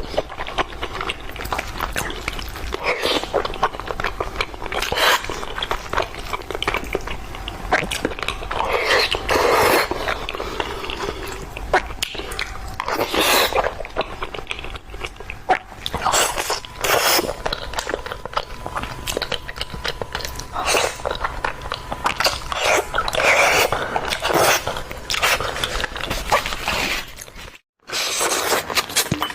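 Close-miked eating of fish: biting and chewing with crackly, crunchy mouth sounds in irregular bursts. The sound drops out for a moment about a second and a half before the end.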